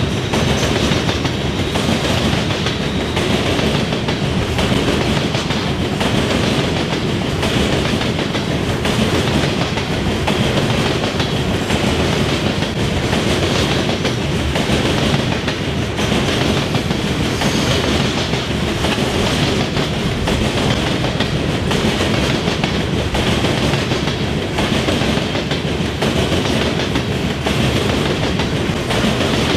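Loaded coal hopper cars of a CSX train rolling across railroad diamond crossings, their wheels clattering over the crossing frogs in a steady, unbroken run of passing cars.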